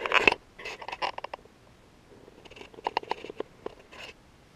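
Handling noise on a workbench: rustling, scraping and sharp clicks in two clusters, the louder one at the start and a second one around three seconds in.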